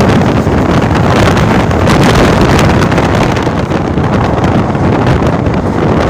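Heavy wind buffeting a microphone held out of a moving express passenger train, over the train's running rumble on the track. The sound is loud and steady, with scattered sharp crackles from the wind.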